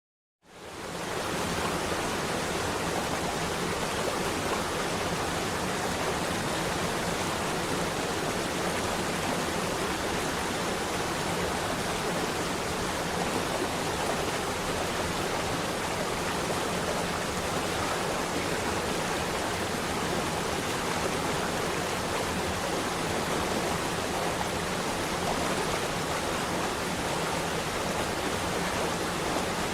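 Waterfall: steady rushing of falling water, fading in quickly at the start and then running evenly.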